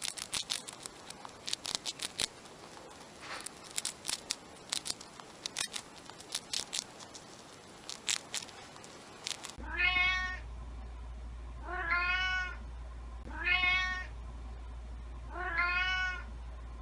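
A hamster chewing food, a quick run of small crunchy clicks. Then a cat meows four times, about every two seconds, each call rising and then falling, over a low steady hum.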